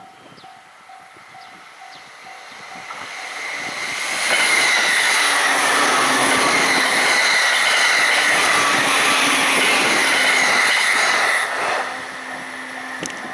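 A Japanese level-crossing warning bell rings in a steady pulsing rhythm. A Joban Line train then comes up and passes at high speed: its wheels on the rails and its running noise stay loud for about seven seconds, then fade away.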